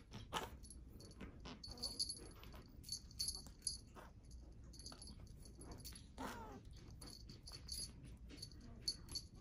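Small bell on a wand cat toy jingling in short bursts, with light clicks and rattles as an exotic shorthair kitten bats and bites at the toy. One short falling cry about six seconds in.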